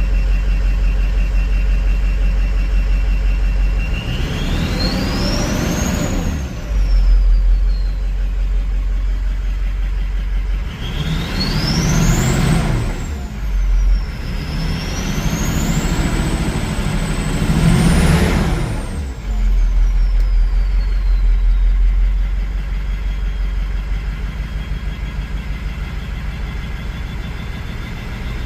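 Ford 6.0L Power Stroke V8 turbodiesel idling and revved three times, the turbocharger's high whistle climbing in pitch with each rev and sliding back down as the engine drops to idle. The second run of revving is held longer, so the whistle dips and climbs again before falling away.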